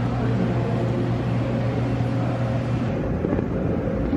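Steady mechanical hum over a broad background noise, with a low drone that drops out about three seconds in.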